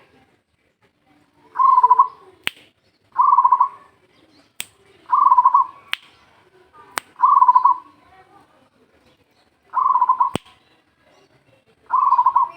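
A zebra dove (perkutut) cooing: six separate trilled phrases, a second or two apart. Sharp single clicks fall between several of them.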